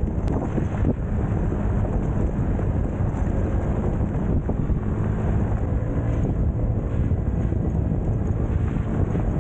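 Small Honda motorbike engine running steadily on the move over a dirt road, with wind buffeting the microphone and a rough, noisy rumble under it.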